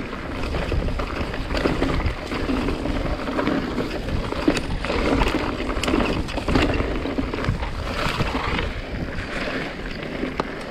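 Mountain bike ride noise on a trail descent: steady wind rushing over the camera microphone, with scattered knocks and rattles as the tyres and bike go over bumps in the dirt.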